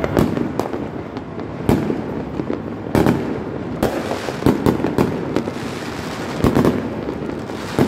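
Many fireworks going off at once: irregular sharp bangs, sometimes several within a second, over a continuous din of more distant explosions.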